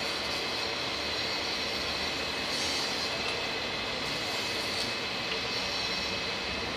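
Steady mechanical hum and hiss of background machinery or traffic, even in level, with a few faint constant high tones.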